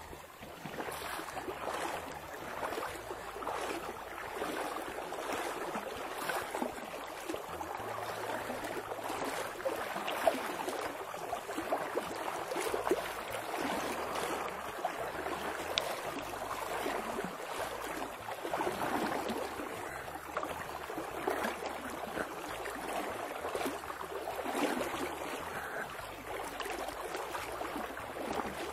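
Small river's current flowing and burbling steadily.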